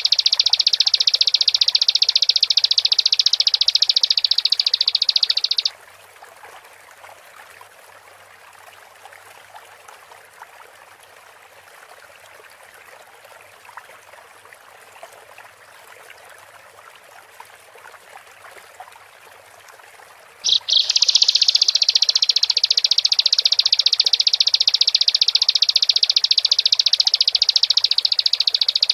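Bar-winged prinia (ciblek) giving a loud, rapid, high-pitched trill. It cuts off about six seconds in and starts again abruptly about twenty seconds in. In the gap only a faint background like running water is heard.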